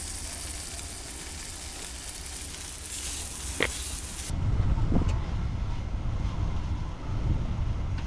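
Carne asada sizzling in a frying pan, a steady hiss. About four seconds in it gives way to a louder low rumble of wind on the microphone.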